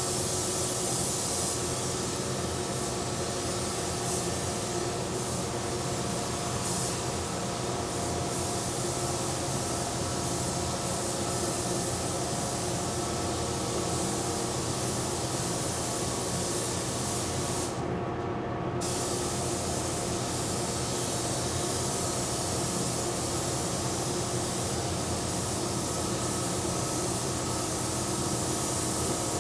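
Automotive paint spray gun spraying with a steady air hiss over a constant hum. The hiss thins out briefly for about a second a little past halfway, as between passes.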